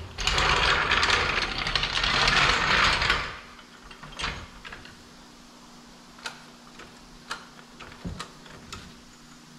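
A floor jack being rolled along the shop floor under the truck door: a loud rattling rumble for about three seconds, then a few scattered light clicks and taps.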